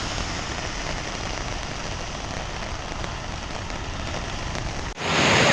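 Steady rushing hiss of heavy rain and water pouring down cliffs. Near the end it cuts off suddenly and switches to a louder, closer rush of torrential water.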